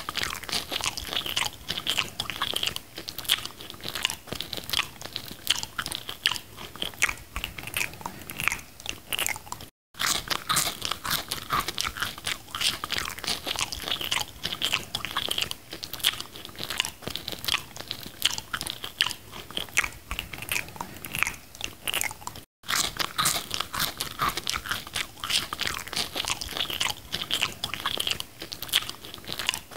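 Close-up eating sounds of McDonald's fast food: a dense, continuous run of crunchy bites and chewing clicks. The sound cuts out for an instant twice, about ten and twenty-three seconds in.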